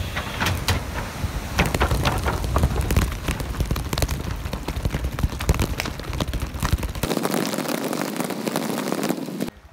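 Mountain bike rolling fast over a rough dirt and gravel trail: tyre noise and the rattle of the bike and its mounted camera, full of sharp clicks and knocks. The low rumble eases about seven seconds in, and the sound drops off suddenly near the end.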